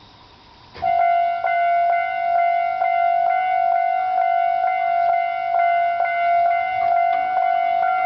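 Japanese railway level-crossing warning bell starting up about a second in, then ringing steadily at a little over two strokes a second.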